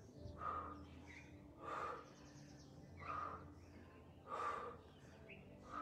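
A woman's forceful exhalations of exertion during a core workout, one short breath about every second and a quarter, five in all.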